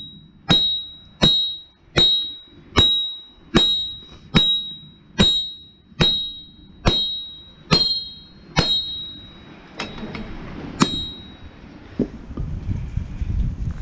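Hand hammer forging hot mild steel on an anvil: a steady rhythm of ringing blows, about one every 0.8 seconds, that stops about nine seconds in, with one more blow a little later. Low wind noise on the microphone near the end.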